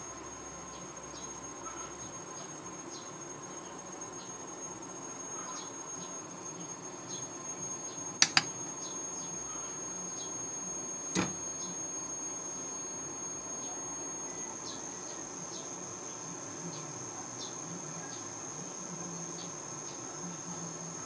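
Steady high-pitched electronic whine from a solar inverter, with a fainter lower hum and light ticking. A sharp double click comes about eight seconds in and a single click about three seconds later, while the unit's display resets.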